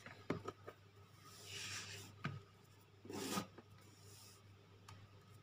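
Faint rubbing and brushing of a hand sliding over a sheet of paper, with a few light taps.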